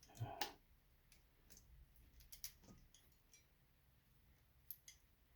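Mostly near silence with a few faint clicks from pliers working a stubborn plastic Christmas-light bulb socket. A small cluster of snaps comes just after the start, and single small ticks follow later.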